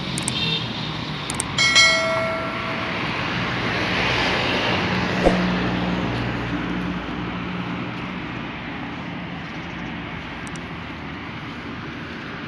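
Street traffic: cars driving past on the road, one swelling past about four to six seconds in. A short ringing tone and a few sharp clicks sound near the start.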